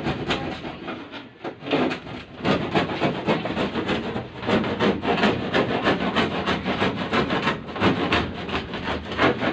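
Rapid, rhythmic back-and-forth scraping strokes of a hand tool on wood, several a second, with a short pause about a second and a half in.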